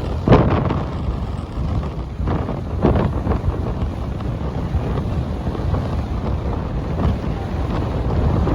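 Heavy wind buffeting the microphone, a loud steady rumble with a few sharper hits in the first three seconds, growing louder near the end.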